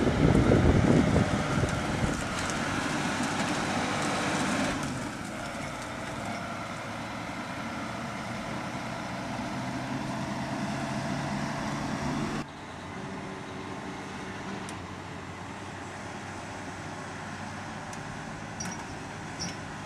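Heavy diesel engine running under load as a tractor drags a loaded dump truck out of a soft field, steady in pitch. About twelve seconds in the sound drops abruptly to a quieter, steady engine drone.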